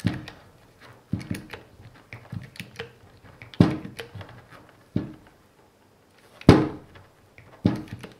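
Hand-pumped hydraulic crimping tool being worked to crimp a 75 A Anderson Powerpole contact onto a wire. It gives about six sharp clacks, unevenly spaced a second or more apart, with light clicking between them.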